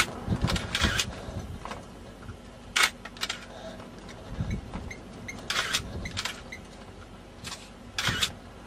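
Camera shutter clicks: about nine short, sharp clicks at irregular intervals over a faint low rumble.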